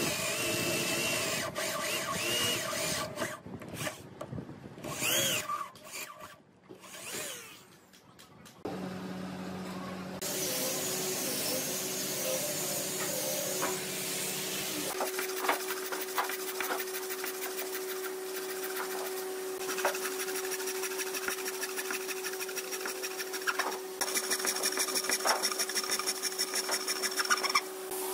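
Handheld electric drill boring into red hardwood in the first few seconds. It is followed by a steady machine hum with scattered clicks and knocks, which get quicker near the end.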